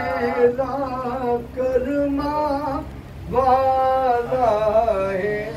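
A man singing a devotional chant in long, wavering held notes, breaking off briefly about three seconds in before going on.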